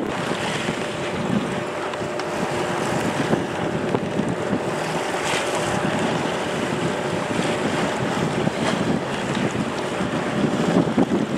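Wind buffeting the microphone over the rush of waves and water past a sailing yacht under sail, steady with a few brief gusty spikes. A faint steady hum sits underneath.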